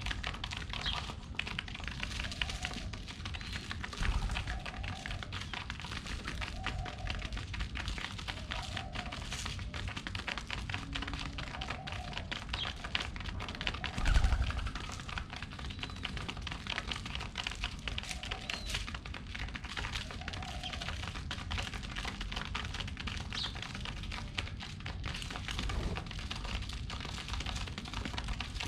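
Pigeons pecking at seeds on the ground: a dense, irregular run of quick light taps, with a louder thump about four seconds in and another about fourteen seconds in.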